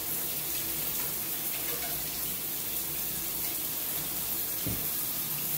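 Shower running at full flow, a steady rush of water splashing down into a freshly cleared channel drain, run to test whether the drain still backs up.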